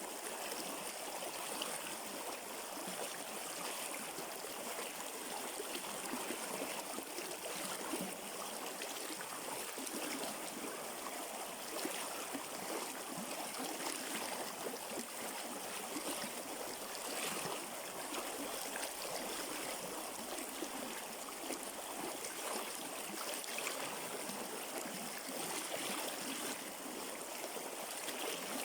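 River water flowing over rocks: a steady rush with gurgling and splashing, evenly loud throughout.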